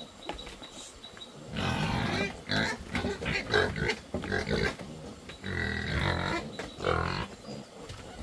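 A group of piglets squealing in several bursts as they crowd around feed buckets at feeding time, eager for food.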